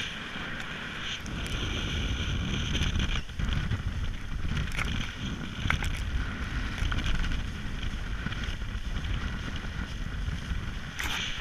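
Wind buffeting the microphone over the steady rush of water along the hull of a sailing catamaran under way, with a few sharp ticks.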